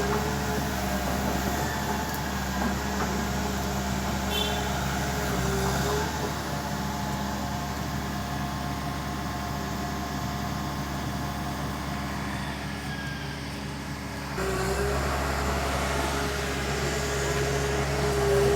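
Backhoe's diesel engine running steadily, getting louder from about fourteen seconds in as it works harder.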